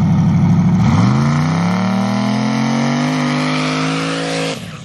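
Turbocharged LS V8 pickup launching hard from a standstill with the rear tires spinning and smoking. After about a second of loud, steady running, the engine note rises steadily through the launch, then cuts off sharply about four and a half seconds in.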